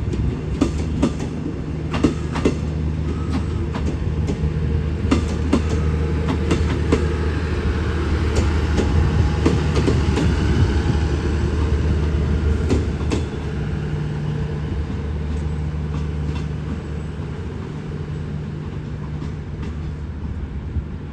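Diesel express train running through a station: a steady low engine drone with wheels clicking over rail joints. About two-thirds of the way through the clicking thins out and the sound eases off.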